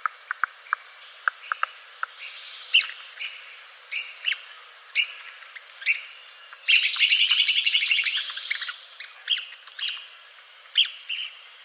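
Red-cockaded woodpecker calling: short, high, squeaky call notes repeated every half second to a second, broken about two-thirds of the way in by a rapid chattering run of notes lasting about two seconds.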